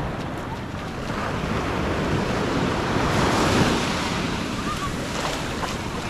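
Small Atlantic surf breaking and washing up the sand at the waterline, swelling to its loudest about halfway through and then easing, with wind on the microphone.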